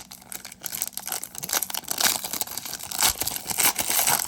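A foil trading-card pack wrapper being torn open and crinkled in the hands, with a dense, irregular crackle.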